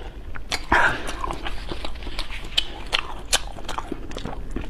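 Close-miked eating sounds: a person chewing and slurping rice noodles, with a louder slurp a little under a second in and many small wet mouth clicks throughout.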